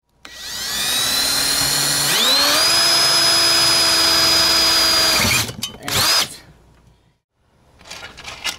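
Power drill driving screws: the motor spins up with a rising whine over about two seconds, runs steadily at speed, and stops after about five seconds, then gives one short second burst.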